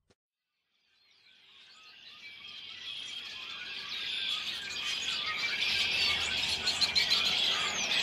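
A large flock of birds perched together, all calling at once in a dense, chattering cacophony. It fades in from silence about a second in and grows steadily louder.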